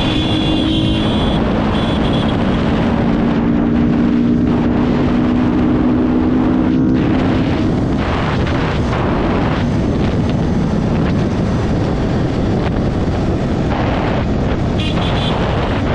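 Motorcycle riding at road speed, with wind buffeting the camera microphone over the engine. A steady engine note comes through for the first half, then fades under the wind.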